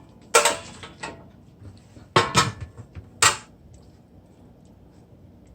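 Metal baking tin and kitchenware clanking as chicken pieces are laid in the tin: one sharp clank about half a second in, two close together a little after two seconds, and a last one just past three seconds.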